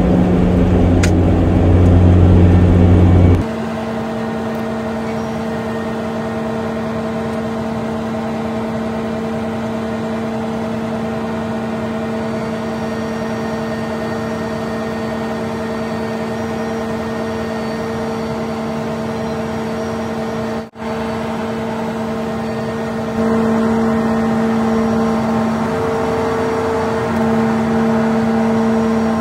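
Kubota ER470 combine harvester running steadily while harvesting rice: a steady machine hum with a constant whine. A deep rumble drops away abruptly a few seconds in, the sound cuts out for an instant about two-thirds of the way through, and it grows louder a few seconds after that.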